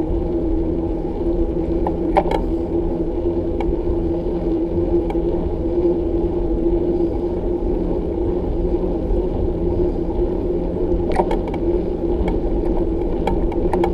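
Riding noise on a bicycle: wind rumbling on the microphone under a steady hum, with a few sharp rattling clicks about two seconds in and again in a cluster near the end.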